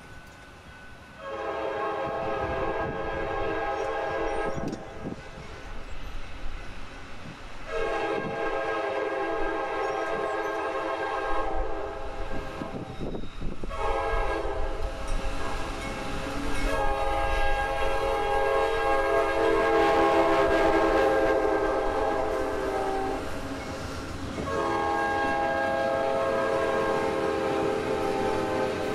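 Norfolk Southern freight locomotive's multi-chime air horn sounding a series of long blasts with short gaps between them, over the low rumble of the moving train.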